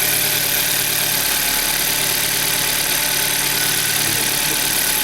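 Rebuilt Hyundai 1.6 GDI G4FD four-cylinder engine idling steadily while cold, its idle speed slightly raised.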